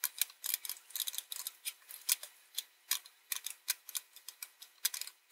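Solder melting under a soldering iron as a wire is soldered onto a small circuit-board pad, the flux crackling in quick, irregular clicks.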